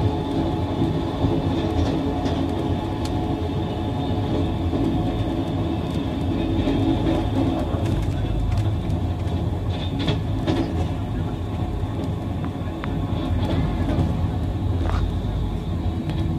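Passenger coach of a moving express train: the steady rumble of wheels running on the rails, with a few sharp clicks.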